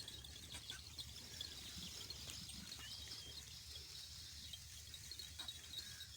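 Faint outdoor ambience: a steady high insect-like hiss with scattered small bird chirps over a low rumble.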